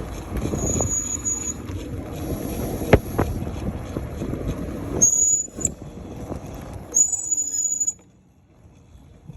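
Electric mini motorbike being ridden: rough wind and tyre rumble with a few knocks, and short high-pitched whines that come and go three times. It falls away about eight seconds in.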